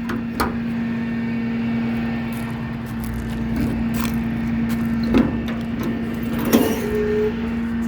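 Steady hum of the Dodge 5500 truck's engine running at idle, with a few sharp metallic clicks and knocks spread through it.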